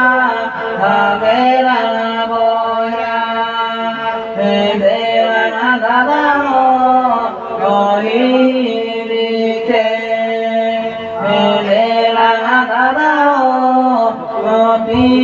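Voices chanting a sung melody in long phrases over a steady, unbroken drone, accompanied by a bowed fiddle held upright.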